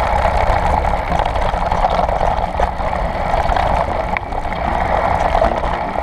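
Mountain bike rolling fast down a dirt forest trail, heard through a bike- or helmet-mounted camera: a steady rush of wind and tyre noise, with a few light knocks and rattles over bumps.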